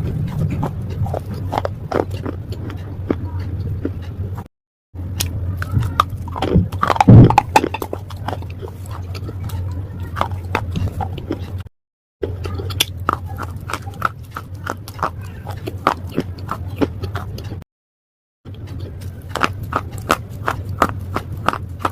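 Pieces of slate being bitten and chewed: a rapid run of crisp cracks and crunches over a steady low hum. The sound cuts out completely three times for a fraction of a second.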